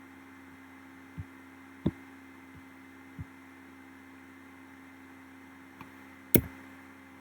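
A few scattered clicks of a computer keyboard and mouse, the loudest about six seconds in, over a steady electrical hum.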